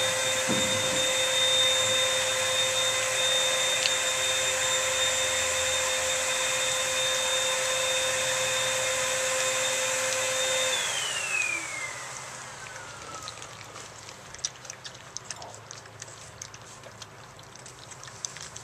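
A household appliance's electric motor running with a steady whine, then switched off a little over ten seconds in, its pitch falling as it spins down. After it, puppies lapping and chewing mush from a plate, a string of small wet clicks.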